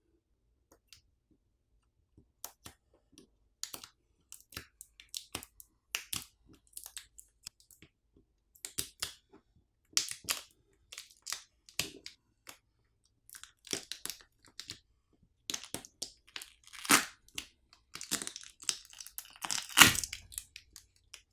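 OnePlus 15R battery being pried up and peeled off its adhesive with its pull tab: scattered short crackles and clicks throughout, with louder tearing crackles about three-quarters of the way through and again near the end.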